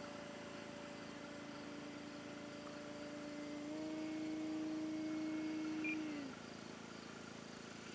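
The E-flite Carbon-Z Cessna 150T RC plane's electric motor and propeller in flight: a steady faint hum. Its pitch steps up slightly a little past halfway, then falls and stops about six seconds in as the motor is throttled back.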